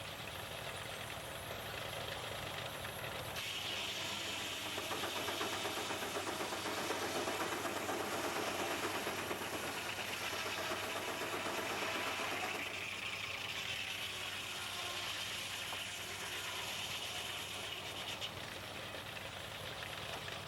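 A steam engine belt-driving a sawmill, running steadily. The sound swells a few seconds in and eases back about two-thirds of the way through.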